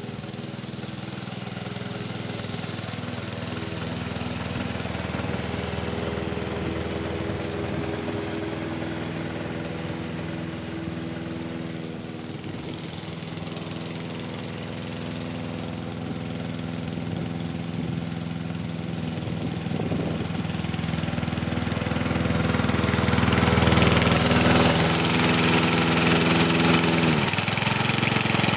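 Honda HR215 lawn mower's single-cylinder four-stroke engine running steadily under load while cutting grass. About two-thirds of the way in it grows louder with a rushing blade-and-grass noise, and near the end the engine note drops in pitch.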